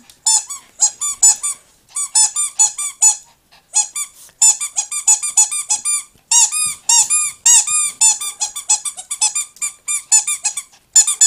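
Newborn Chihuahua puppy squeaking: a rapid series of short, high, arching squeaks, a few a second, in bouts broken by brief pauses.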